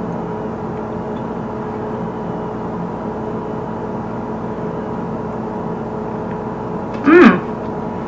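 Steady electrical hum with several constant tones, from a running kitchen appliance. Near the end comes one short vocal sound that falls in pitch.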